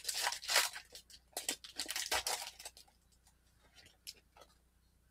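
The foil wrapper of a trading-card pack being torn open and crinkled by hand: a run of sharp crackling rips for nearly three seconds, then only a few faint rustles and clicks.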